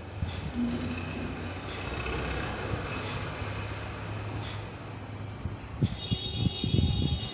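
Steady low rumble of a running heavy vehicle engine, with a cluster of high tones and several low thumps about six seconds in.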